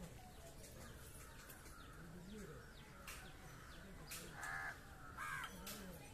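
A crow cawing twice, about four and five seconds in.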